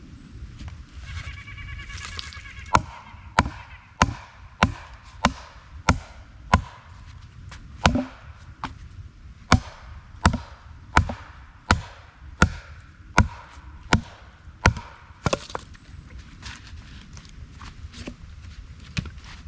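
Homemade wooden wedges being hammered into a knotty log to split it: a run of about seventeen sharp, evenly paced blows, roughly three every two seconds, which then stop.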